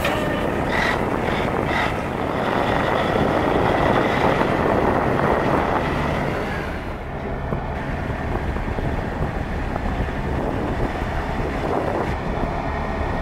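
1987 Peterbilt 377 tandem-axle tractor's Caterpillar diesel engine running as the truck drives and turns, loudest about four seconds in, with wind on the microphone.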